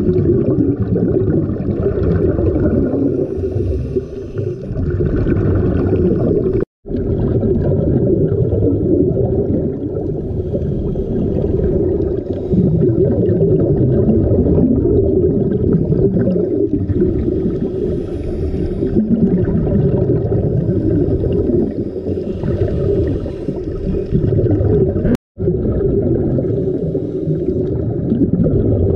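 Muffled underwater noise picked up through a diving camera's waterproof housing: a dense, low rumble of bubbling and gurgling from divers' exhaled air and moving water. The sound cuts out for an instant twice, about 7 and 25 seconds in.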